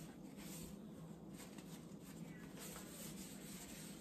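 Quiet kitchen room tone with a faint steady low hum and no distinct events.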